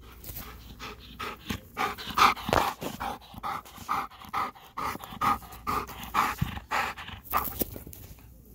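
Belgian Malinois panting hard and fast, about two breaths a second, close by. He is out of breath from running after a ball. The panting stops near the end.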